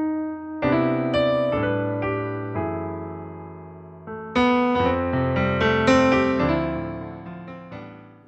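Yamaha CP4 Stage digital piano playing a piano patch: slow chords struck and left to ring and fade, with fresh chords about half a second in, again about four seconds in, and once more near six seconds.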